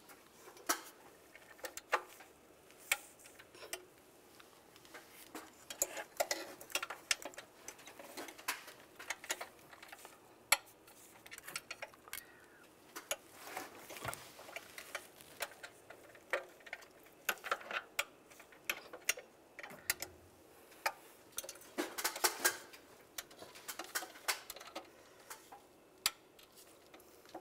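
Torque wrench ratcheting in short runs of sharp clicks, mixed with metal clinks of socket and extension, as the intake manifold bolts are torqued on a second pass to 7.4 foot-pounds.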